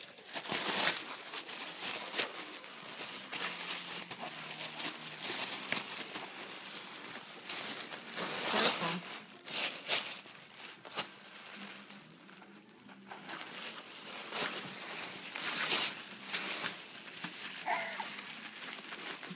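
Red tissue paper and plastic gift wrapping crinkling and rustling as a present is pulled apart by hand, in uneven handfuls, loudest about a second in, around eight seconds in and around fifteen seconds in.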